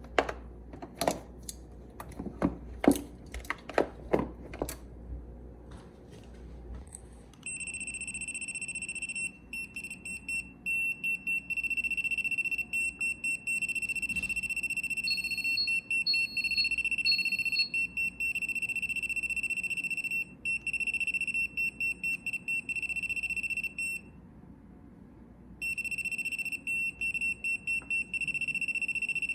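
An electronic buzzer sounding one high, steady alarm tone that flutters with rapid breaks. It starts a few seconds in, pauses briefly near the end and starts again. A few sharp knocks and clicks of handling come before it, and three short higher beeps cut in partway through.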